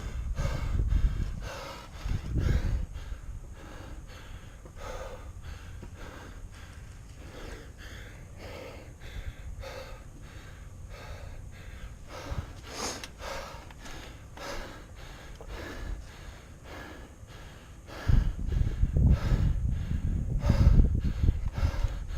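A person breathing hard close to the microphone, short breaths in and out about once a second, with low rumbling movement or wind noise on the microphone near the start and again near the end.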